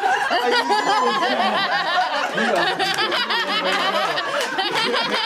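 A small group laughing and exclaiming excitedly over one another, their voices overlapping without a break, with some hand clapping.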